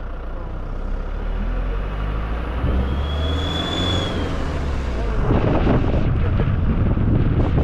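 Car engine and road noise while driving on a winding road, with a brief high squeal about three seconds in. From about five seconds in, wind rushes over the microphone and gets louder.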